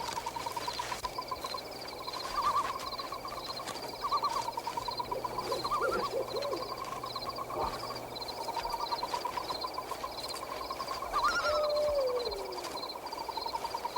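Woodland night sound effects: an owl hooting over a steady, rapid pulsing chorus of night creatures. A single falling call comes late on.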